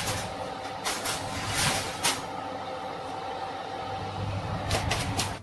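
Ariston fan oven running with a steady hum, broken by a few sharp knocks and clatters: one about a second in, a couple around two seconds, and several near the end.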